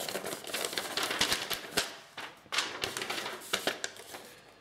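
A paper instruction sheet being handled and turned over, rustling and crackling in two bouts with sharp little clicks, the second ending about four seconds in.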